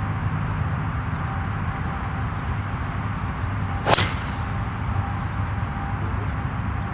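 A driver striking a golf ball off the tee: one sharp crack about four seconds in, over a steady low rumble.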